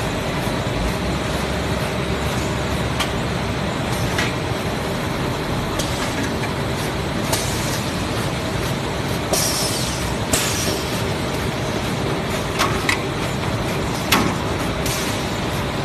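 Plastic bag cutting machine running with a steady mechanical drone, broken every second or two by short sharp clacks and hisses.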